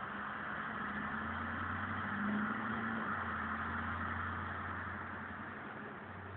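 An engine running steadily with a low hum, swelling slightly a little past two seconds in and easing off toward the end.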